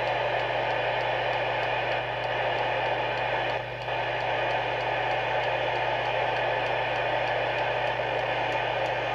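Moonraker Minor II CB radio hissing steadily through its own speaker with the squelch open: unsquelched receiver noise, with a steady low hum underneath.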